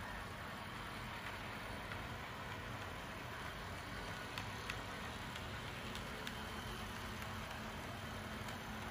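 HO scale model diesel train rolling along the track: a steady low running noise with a few faint clicks around the middle.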